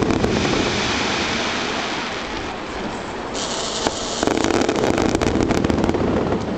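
Aerial fireworks display in a rapid barrage: shells bursting one after another with dense crackling and hissing sparks, and a sharp bang just under four seconds in.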